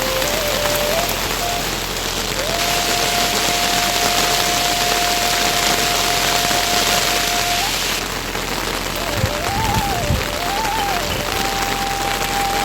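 Steady rain falling on surfaces, heavier for several seconds in the middle. Over it runs a thin melody of single held and wavering notes, and a few dull low knocks come near the end.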